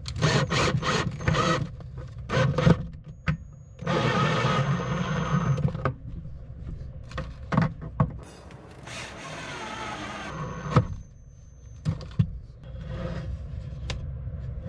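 Ryobi cordless drill driving wood screws through a concealed cabinet hinge into the wooden frame. There are a few short bursts at the start, then two longer runs of about two seconds each, around four and nine seconds in, with a thin high whine over each run.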